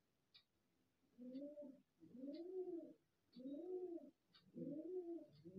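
Faint, low bird calls repeated about once a second, each rising and falling in pitch, beginning about a second in and overlapping toward the end.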